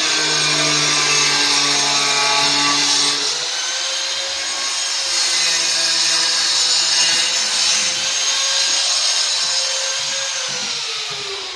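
A power tool running steadily with a harsh, high grinding noise; its pitch drops near the end as the motor slows down.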